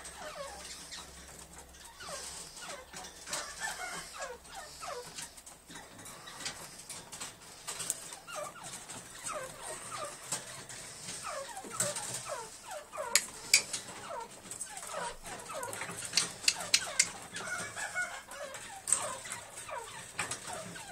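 Caged black francolins giving many short chirps that slide down in pitch, over and over. A run of sharp clicks a little past the middle is the loudest sound.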